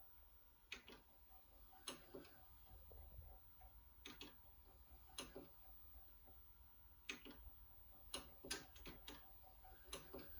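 Near silence with about a dozen faint, irregular clicks, bunched more closely near the end.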